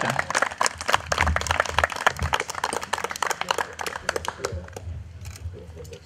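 A small crowd clapping: dense applause that thins out and fades away over about five seconds.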